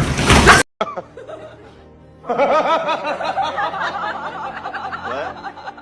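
A brief loud rush of noise that cuts off abruptly, then, after a short lull, music mixed with chuckling laughter.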